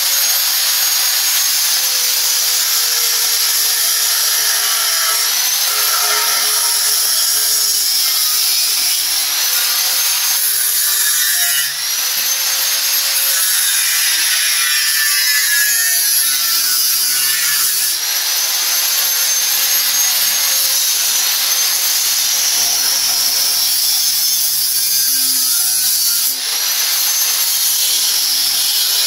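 Angle grinder cutting through metal legs: a steady high whine over grinding noise, its pitch sagging and recovering as the disc bites. There are brief let-ups about twelve seconds in and again a few seconds before the end.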